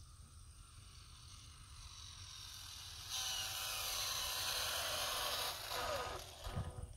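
Arrma Typhon 6S RC car's brushless electric motor and drivetrain whining at full throttle on a top-speed run of about 128 mph. The high-pitched whine builds as the car approaches, then drops sharply in pitch as it shoots past about six seconds in, followed by a brief low rumble.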